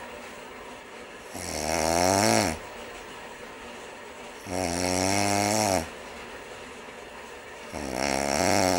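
A man snoring: three snores about three seconds apart, each lasting about a second, with a steady hiss between them; the pitch of the second one bends up and back down.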